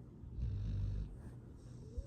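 Sleeping dog snoring: one loud snoring breath about half a second in, lasting about half a second, then a fainter breath starting near the end.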